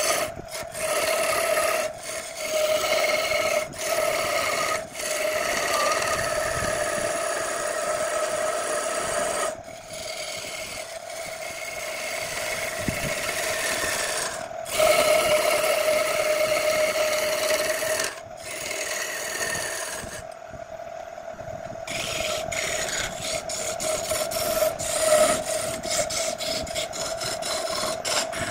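Wood lathe turning a wooden vase blank while a hand-held turning tool cuts into it, a scraping hiss of shavings over a steady hum. The cutting stops and starts as the tool is lifted: short strokes at first, then longer passes, with a longer pause about two-thirds of the way through.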